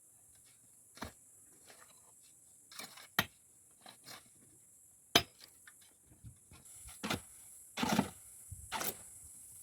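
Irregular clinks and knocks of hard objects against each other, one or two seconds apart, the sharpest about five seconds in, over a steady high hiss.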